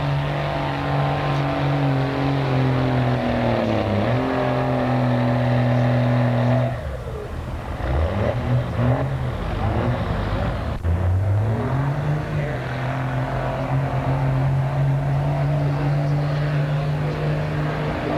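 Diesel pickup truck engine held at high revs under load while pulling the sled, its pitch dipping briefly about four seconds in. About seven seconds in the throttle drops off and the engine revs up and down, then settles into a steady high-revving note again.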